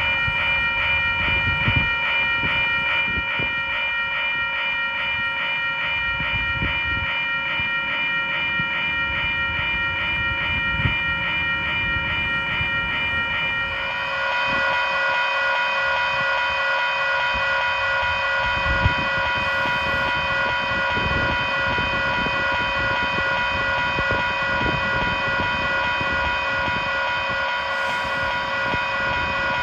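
Western-Cullen-Hayes Type 1 E electronic railroad crossing bells ringing with rapid, evenly repeated dings. About fourteen seconds in, the ringing turns denser and more continuous.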